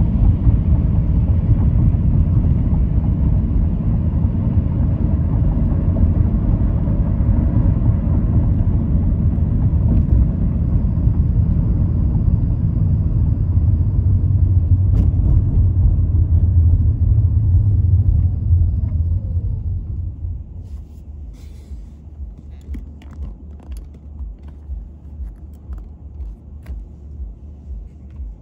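Road and engine noise of a car being driven, a steady low rumble. About twenty seconds in it drops sharply, leaving a much quieter low hum with faint ticks.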